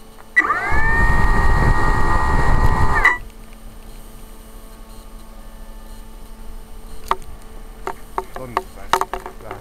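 RC model airplane's electric motor and propeller run up briefly: a whine that rises in pitch and then holds steady for under three seconds over a heavy rumble of prop wash on the onboard microphone, then cuts off sharply.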